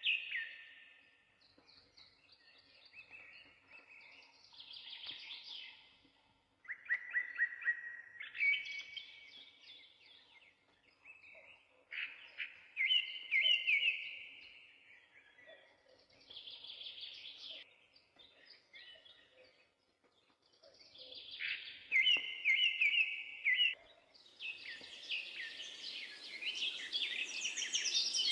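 A songbird singing in phrases of quick trills and warbles, a few seconds each with short pauses between them. A steady hiss comes in under the song near the end.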